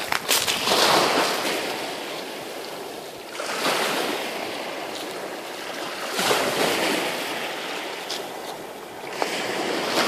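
Waves washing up a pebble beach, surging in about every three seconds.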